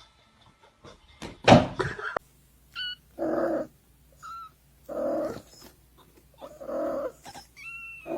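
A pet animal calling four times in short, even calls about a second and a half apart, after a loud knock or scrape about a second and a half in. Short high chirps fall between the calls.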